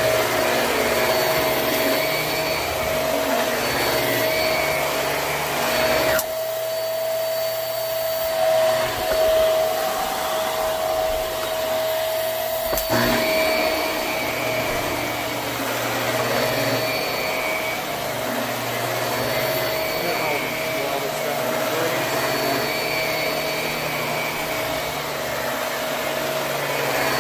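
Hoover High Performance Swivel upright vacuum running on carpet: a steady motor whine over the rush of air. The deeper rumble drops away for several seconds near the middle, then comes back.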